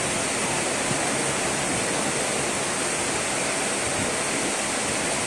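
A steady, even rushing noise fills a large event hall, with no speech.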